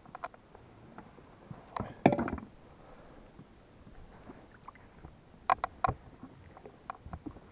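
Oar and gear handling in an inflatable rowing boat: scattered knocks and clicks, the loudest about two seconds in, with another quick cluster of clicks about five and a half seconds in.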